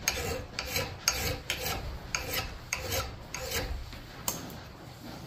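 A hand file scraping in quick strokes across the steel bit of a Collens double bit axe, sharpening the edge and raising a burr: about two to three strokes a second, stopping about four seconds in after one last stroke.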